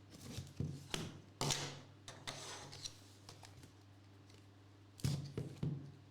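Trading-card packaging and cards being handled on a table: a run of sharp taps and clicks, a short sliding rustle, then a few more taps near the end, over a steady low hum.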